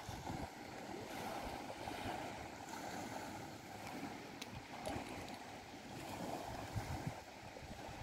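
Small sea waves washing steadily onto the beach, with wind gusting on the microphone.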